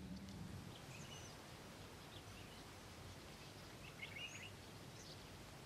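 Faint natural outdoor ambience: a quiet steady hiss with a few short, faint bird chirps scattered through it.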